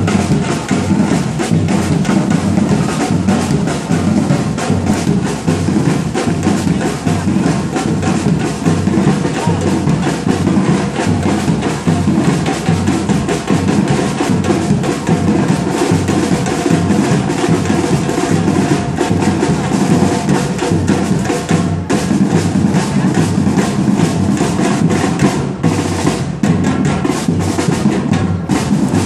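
Street percussion group playing: large bass drums and snare drums beating together in a dense, steady, loud rhythm, with snare rolls.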